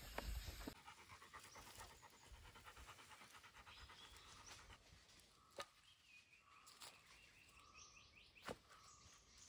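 Near silence: faint ambience after a low rumble that cuts off under a second in, with two sharp clicks in the second half.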